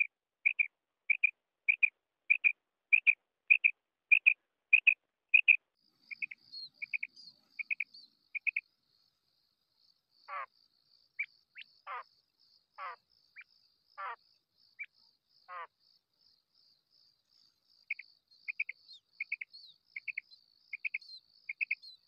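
Female common quail calling: a steady series of short, clipped double notes, a little under two a second, broken in the middle by a few longer falling calls before the short notes resume. A faint high chirring runs behind from about six seconds in.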